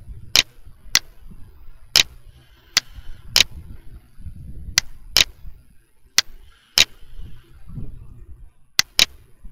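Computer mouse clicks, sharp and irregular, about a dozen with some in quick pairs, over a faint low background rumble.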